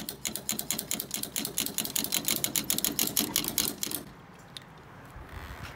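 Fuel cap ratchet on a truck's filler neck clicking as the cap is turned: a fast, even run of about seven clicks a second that stops about four seconds in.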